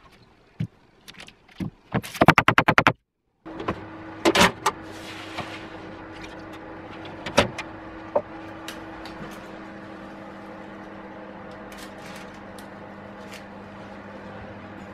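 A quick run of about a dozen sharp taps, then a steady hum from an open electric oven, with metal knocks and clinks as a foil-wrapped cake tin is set on the oven's baking tray.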